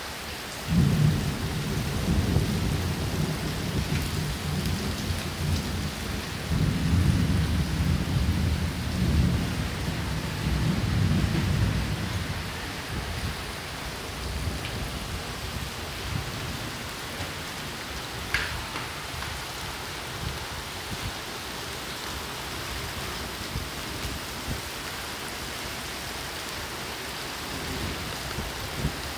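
Heavy rain falling steadily. A deep roll of thunder breaks in suddenly about a second in, rumbles for about ten seconds and fades out, leaving the rain alone.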